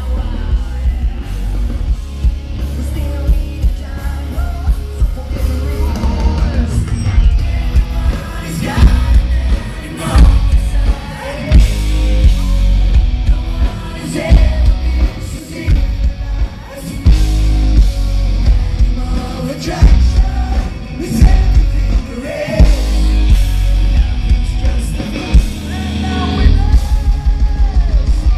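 Glam rock band playing live: a male lead vocal sings over distorted electric guitars, bass and drums. The concert sound is loud, with heavy bass.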